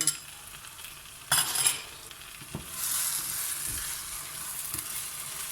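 A utensil scrapes and clatters against a cooking pan, then food fries with a steady sizzle from about three seconds in. It is tomato paste being stirred into onions frying in oil.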